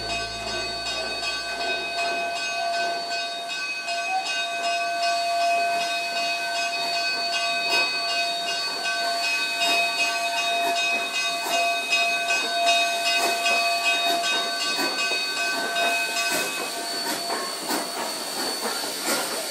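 K-36 narrow-gauge steam locomotive no. 481 rolling slowly with steam hissing, scattered clicks and a steady whine of several pitches that stops about three-quarters of the way through.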